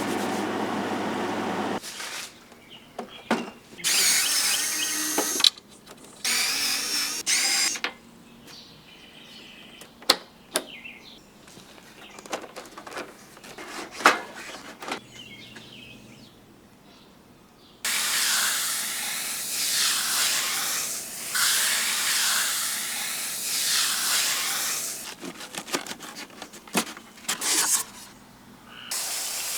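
Working on a window air conditioner: several short runs of a power tool, scattered clicks and knocks, then a long stretch of steady hissing of about seven seconds in the second half, broken by a few short dips.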